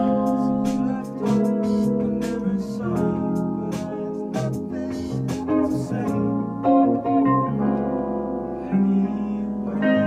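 Live rock band playing an instrumental passage on electric guitar, keyboard and bass guitar, with many sharp note attacks in the first six seconds that thin out after.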